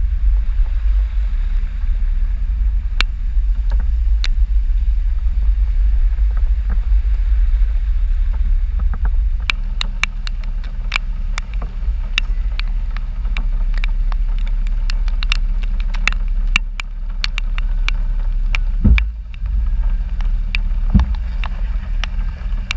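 Jeep engine running under a heavy, steady low rumble of wind buffeting the outside-mounted camera's microphone. About halfway through, many sharp ticks of raindrops hitting the camera begin, with a couple of low thumps near the end.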